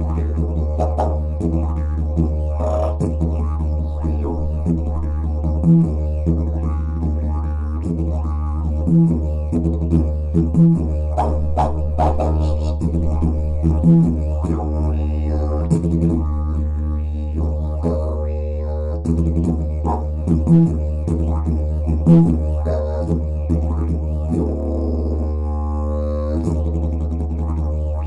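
Agave-and-hardwood didgeridoo tuned to D, played with a continuous low drone and shifting overtones above it. The drone is broken by loud rhythmic accents every few seconds, each with a brief dip.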